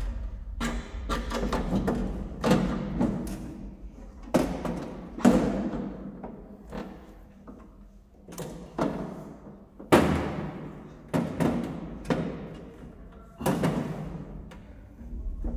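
Irregular knocks and thuds on a sheet-steel electrical enclosure, the metal ringing briefly after each, as cables are handled inside it. The loudest knock comes about ten seconds in.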